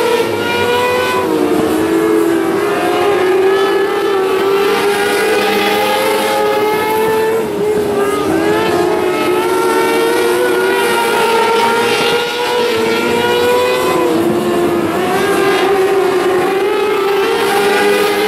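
Several 600cc micro sprint cars racing, their motorcycle engines running at high revs, the overlapping engine notes rising and falling as the cars lift and accelerate through the turns.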